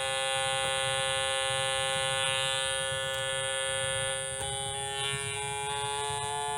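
555 timer tone generator switching on abruptly and sounding a steady, buzzy electronic tone with many overtones. A little over four seconds in the pitch shifts, then creeps slowly upward as the digital potentiometer sweeps its setting.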